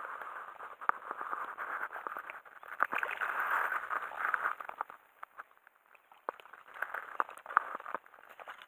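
A hooked herabuna (Japanese crucian carp) splashing and swirling at the water's surface as it is played close in on the rod, with scattered sharp splashes and clicks. It goes quieter for a moment about five seconds in.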